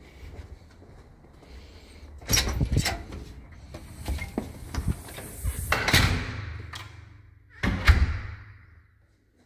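A metal security screen door and the front door behind it being opened: rattles and clicks of latch and handle, a longer stretch of noise around six seconds, and a loud thump near the end.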